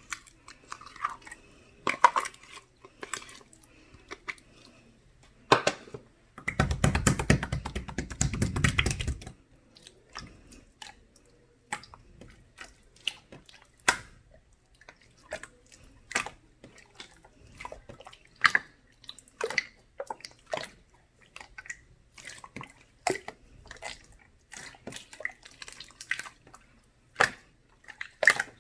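Slime being squished and poked by hand, giving scattered sticky clicks and pops, with a dense run of crackling about seven seconds in that lasts a couple of seconds.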